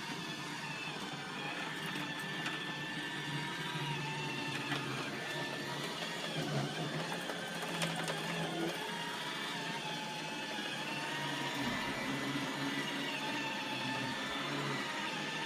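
iRobot Roomba 880 robot vacuum running: a steady motor whine whose pitch wavers up and down.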